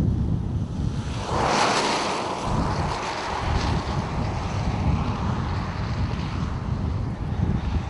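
Strong storm wind buffeting the microphone with a low rumble, and a gust of rushing wind that swells about a second in and slowly eases off.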